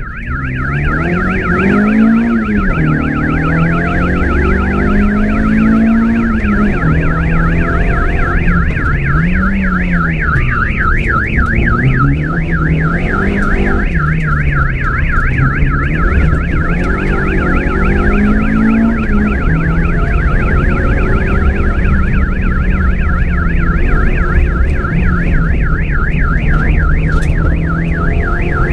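A rapid, steady siren-like warble that never pauses. Under it, a lower note rises and falls over a low rumble.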